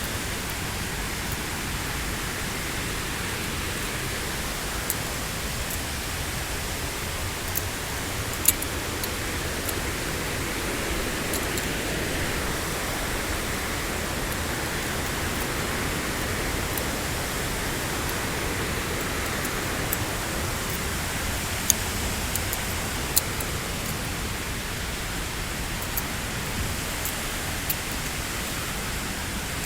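Waterfall, a veil of water falling about 50 m into a pool: a steady rush of water noise, with a few sharp ticks.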